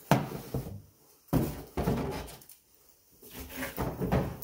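Rustling and knocking as a fabric garment bag is handled and lifted out of a cardboard box, in three bursts: one at the start, one about a second in, and a last one near the end.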